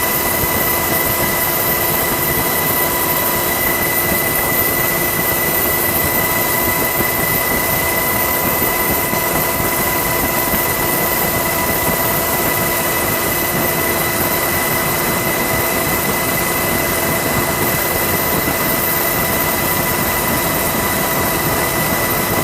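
Loud, steady engine noise: an even roar with several constant whining tones on top of it, unchanging throughout.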